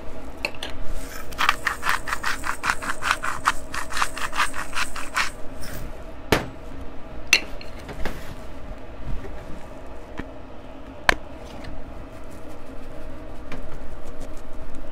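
Hand-twisted salt grinder grinding salt, a rapid rasping run of about five strokes a second for about four seconds, followed by a few single sharp knocks.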